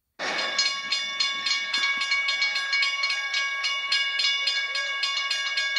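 Railroad crossing bell ringing in a fast, even rhythm of about three to four strikes a second, its ringing tones holding steady between strikes.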